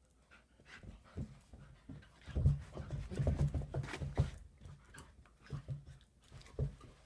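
Two dogs play-fighting, an adult and a puppy: panting and rough, low play noises, loudest and busiest for a couple of seconds in the middle.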